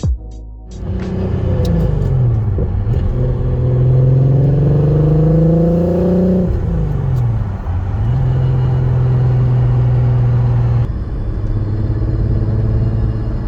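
Volkswagen's 3.6-litre VR6 engine pulling through the gears. Its note rises, dips at a shift, climbs for about four seconds, drops at another shift, then runs at a steady pitch.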